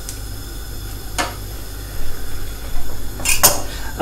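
Steady low kitchen hum with a few sharp knocks of kitchen utensils: one about a second in and a quick pair near the end.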